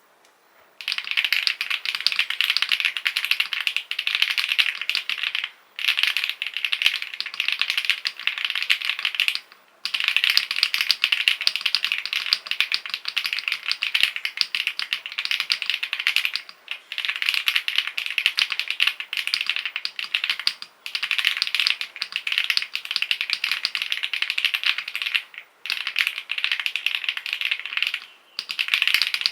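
Very fast typing on a custom mechanical keyboard with creamy-sounding switches: a dense, continuous patter of key clicks. It breaks off for brief pauses about every four seconds.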